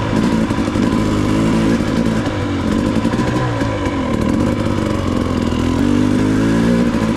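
KTM XC-W two-stroke dirt bike engine running along a trail, its pitch rising and falling with the throttle.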